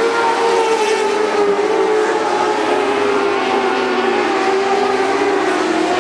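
Dwarf race car engines running at racing speed, a steady engine note that wavers slightly up and down in pitch as the cars circle the track.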